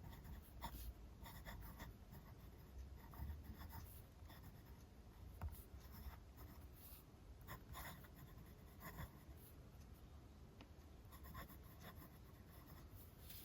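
Faint scratching of a Montblanc Meisterstück 149 fountain pen's 18-karat gold medium nib moving across paper as it writes, with scattered light irregular ticks as the strokes start and lift.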